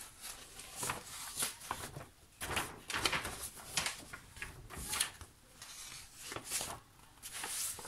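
Sheets of paper from a printed cross-stitch chart rustling as the pages are lifted, turned and shifted by hand, in a dozen or so irregular swishes.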